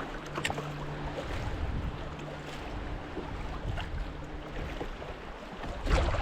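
Wind and water noise around a small fishing boat on a lake, with a faint low steady hum through most of it and a few light clicks, then a louder rush of wind near the end.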